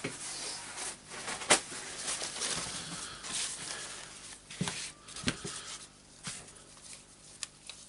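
A sheet of paper towel rustling as it is spread out on a wooden workbench, with several sharp knocks and clicks as a cordless drill's gear assembly is handled and set down.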